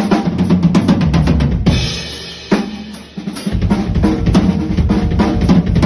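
Pearl Reference Pure drum kit played, with rapid snare and tom strokes, a cymbal wash about two seconds in, and a driving bass drum and snare pattern after a brief lull; its tuning is one the owner isn't sure is dialed in.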